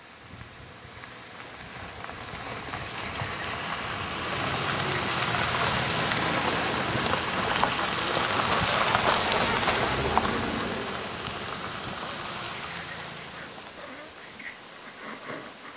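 A line of SUVs and pickup trucks driving past close by on a dirt road, engines running and tyres crunching. The sound swells to a peak about halfway through as the nearest vehicles go by, then fades away.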